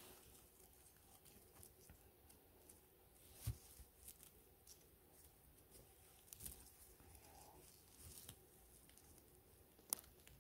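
Near silence, with a few faint crackles and ticks of dry twigs and forest litter touched by a gloved hand. The sharpest come about three and a half seconds in and just before the end.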